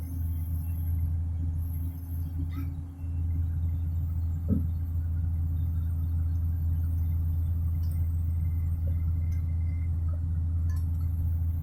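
Komatsu PC200 excavator's diesel engine running steadily with a deep, even hum, and a brief squeal about four and a half seconds in.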